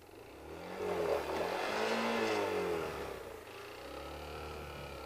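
Yamaha Factor 125 motorcycle's single-cylinder four-stroke engine revving up and back down a couple of times. It is loudest about two seconds in, then settles to a lower, steadier note.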